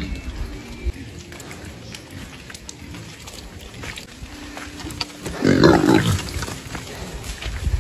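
Pigs grunting, with one loud call about five seconds in that lasts about a second.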